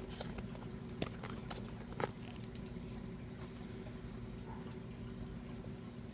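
Quiet room tone with a steady low hum, broken by a few small sharp clicks, the clearest about one and two seconds in.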